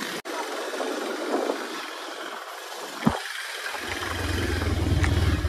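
Motorbike running under way, heard from the rider's seat, with a steady rush of road and wind noise and a single sharp knock about three seconds in. Near the end a strong low pulsing rumble comes in and grows louder.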